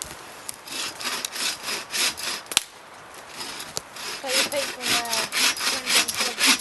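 Hand saw cutting through a log of firewood in steady back-and-forth strokes, pausing briefly about halfway through.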